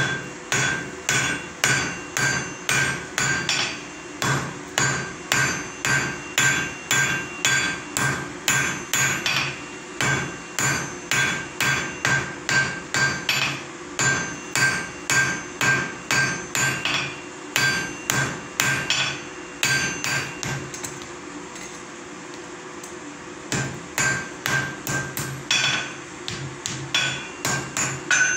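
Hand hammer striking white-hot iron on an anvil during a forge weld, about two blows a second, each with a short metallic ring. The hammering stops for a few seconds about three-quarters of the way through, then starts again.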